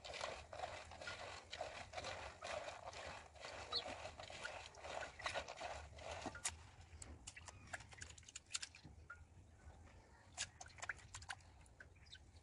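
Soaked split moong dal worked by hand in a small steel bowl over a basin of water, panned to separate the peels: wet sloshing with many small clicks of grains and metal, thinning to scattered light clicks after about six seconds.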